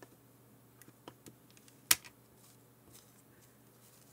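Scattered small clicks and taps from tweezers and fingers working inside an opened portable cassette player, picking out pieces of its broken rubber drive belt, with one sharp, louder click about two seconds in.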